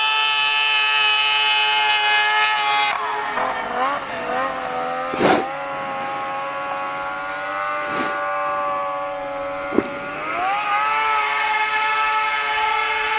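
Yamaha snowmobile engine running at high revs with a high whine; about three seconds in the pitch drops and wavers as the engine eases off, then climbs again near the end as it speeds back up. A few short thumps are heard along the way.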